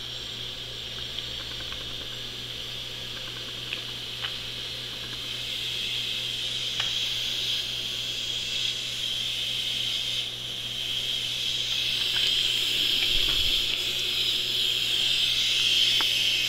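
Compressed air hissing steadily as a leak-down tester pressurises a cylinder of a BMW R90/6 boxer engine, growing louder through the second half as the pressure is brought up. The escaping air is a small leak that the tester is there to measure.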